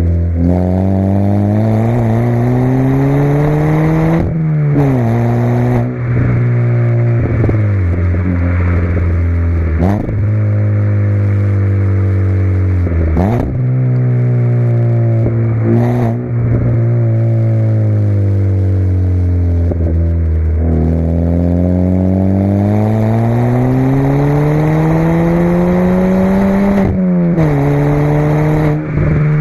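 MK6 Ford Fiesta Zetec S's 1.6-litre four-cylinder petrol engine through a custom non-resonated cat-back exhaust, under way. The note climbs and falls with engine speed and drops suddenly at gear changes, with a few short sharp cracks from the exhaust in between.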